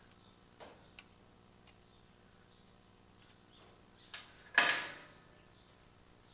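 Hand-tool work on a motorcycle's footpeg hardware: a few light clicks, then a brief knock and a sharp metallic clatter that rings out for about half a second, like a tool or metal part set down on a hard surface.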